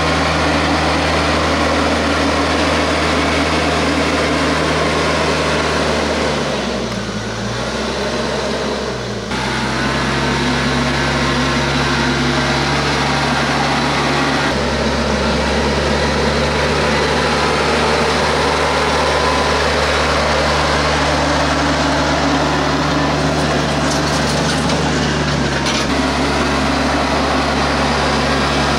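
TYM T474 compact tractor's diesel engine running steadily while it pulls a land plane through loose dirt. The engine note drops and comes back twice, with a slight dip in loudness, about seven to nine seconds in.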